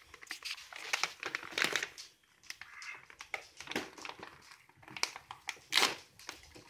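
Dog-treat packaging crinkling and rustling as it is handled, in irregular bursts, loudest near the end.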